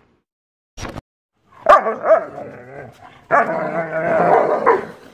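German Shepherd dogs barking and yipping, starting about a second and a half in, then a longer drawn-out cry of wavering pitch.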